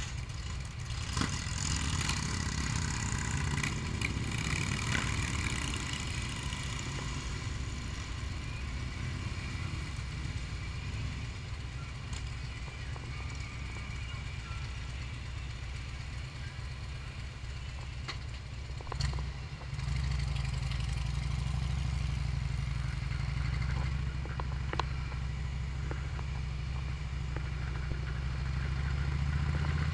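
A pack of touring motorcycles idling and pulling away one after another. About two-thirds of the way in a knock is followed by a nearer engine's low rumble, which comes in louder and grows near the end as that bike moves off.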